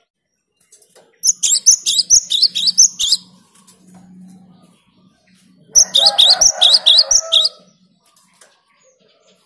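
Cinereous tit (gelatik batu) calling in two bursts of rapid, high, repeated chirps, the first starting about a second in and the second near six seconds, each lasting about two seconds.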